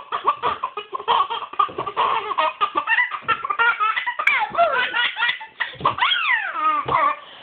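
Baby laughing in quick runs of giggles, then a long high squeal that falls in pitch about six seconds in.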